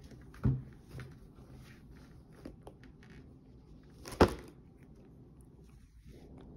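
A tabby house cat purring close to the microphone, a low steady hum, with two sharp knocks as the cat bumps against the phone, the louder one just past four seconds in.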